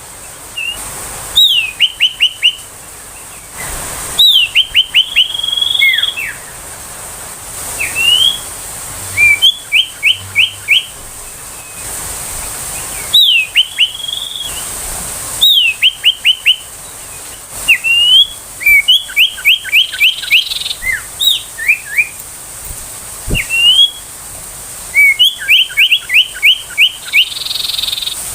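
Common iora calling in repeated phrases, one every couple of seconds. Each phrase is a rising note followed by a quick run of three to six short falling whistles.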